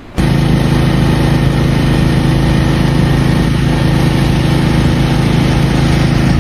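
An engine running steadily at one constant speed, cutting in suddenly just after the start.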